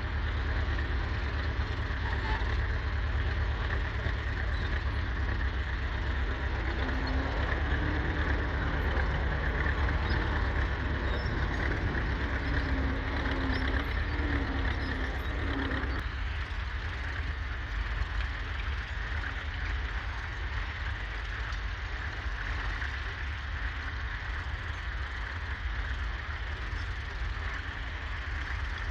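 Ford 3000 tractor's 2.9-litre three-cylinder diesel engine running steadily with a deep low rumble as it works the field with a two-furrow plough. The sound drops to a lower level about halfway through.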